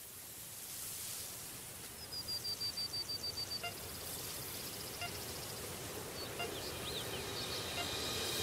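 Quiet outdoor nature ambience as a track's intro: a steady hiss with a bird's rapid trill of about a dozen high notes about two seconds in, and a few more chirps later, slowly building.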